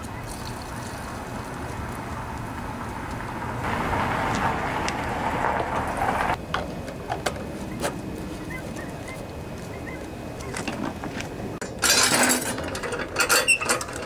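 Gasoline pouring from a gas can into a small engine's fuel tank, a steady splashing stream that gets louder about four seconds in and stops about six seconds in. Then a few clicks and knocks as the tank cap is put back on, and louder rustling near the end.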